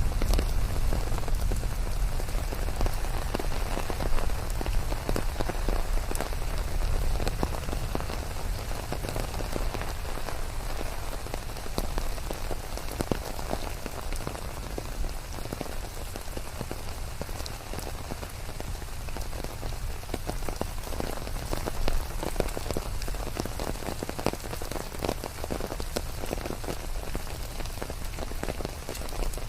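Steady rain falling, with many individual drops ticking close by over a constant hiss.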